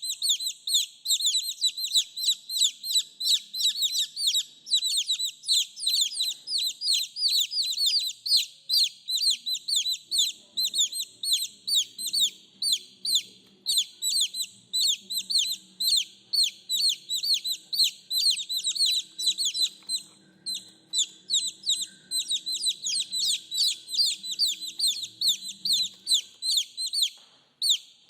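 Baby chicks peeping without pause, a rapid run of short, high, falling cheeps several times a second.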